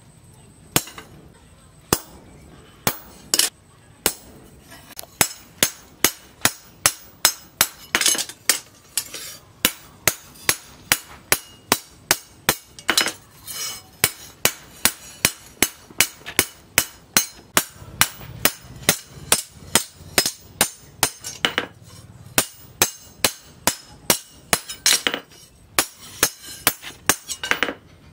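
A hand hammer strikes a steel cleaver blade on a post anvil with a sharp metallic clink at each blow. The blows come a few at a time at first, then settle into a steady run of about two a second.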